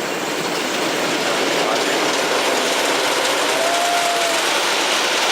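The Beast wooden roller coaster's train running along its track with a steady rushing noise, and a brief squeal about four seconds in.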